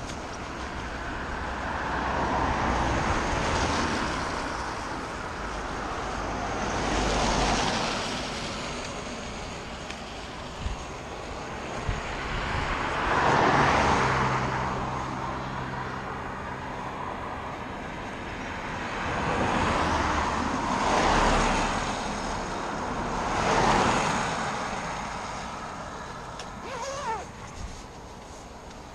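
Motor vehicles passing one after another on a wet road, each a hiss of tyres that swells and fades away. About six go by; one about halfway through is heavier, with a low engine drone under the hiss. A few small clicks come near the end.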